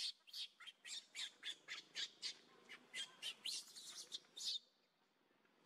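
Newborn baby monkey giving a rapid run of short, shrill squealing cries, about three or four a second, as it is pushed about by an adult monkey; the distress cries of a rejected infant. The cries stop about four and a half seconds in.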